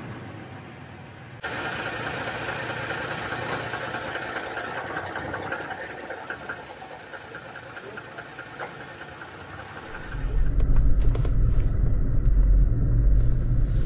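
Toyota Tacoma pickup in motion: a steady mechanical noise cuts in suddenly, then a loud low rumble takes over from about ten seconds in.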